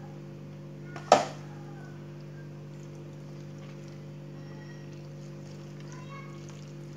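One sharp knock about a second in, over a steady low hum.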